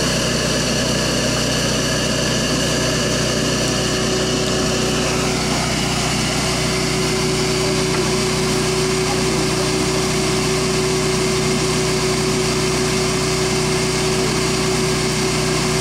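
Bee vacuum's motor running steadily, drawing bees up the hose into the hive box, a constant high drone whose upper tones change about five seconds in.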